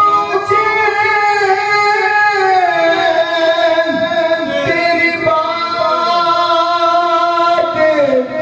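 A man singing a naat, the Urdu devotional poem, without instruments, into a handheld microphone, in long held notes that glide up and down.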